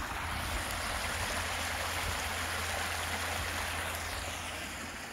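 Brook water running steadily, a continuous rushing sound.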